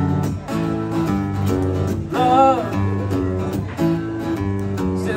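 A band playing an instrumental break led by acoustic guitar, with sustained chords and one wavering, bending lead note about two seconds in.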